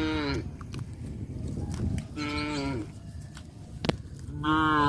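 Cows mooing: three separate calls, one right at the start, one about two seconds in and one near the end, each bending down in pitch as it finishes. A single sharp click falls between the second and third calls.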